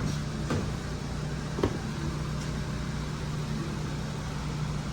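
Steady low hum of shop background noise with two light clicks of parts being handled during engine work, the sharper one about a second and a half in.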